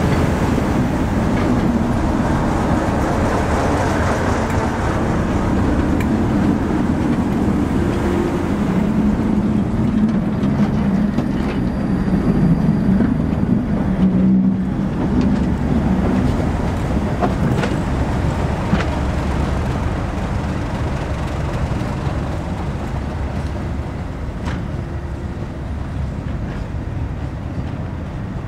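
Class 37 diesel locomotive's English Electric engine running as it slowly hauls a second locomotive past, with a steady deep hum that fades toward the end as the train draws away. A few sharp clicks of wheels over rail joints come about two-thirds of the way through.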